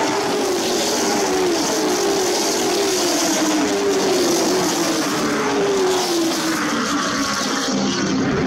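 A pack of late model stock cars racing past, their V8 engines running loud together, with several overlapping engine notes falling in pitch as the cars go by.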